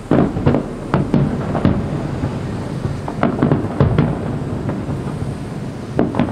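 Aerial fireworks going off in quick succession: sharp bangs over a continuous low rumble. The bangs come in clusters near the start, around the middle and again near the end.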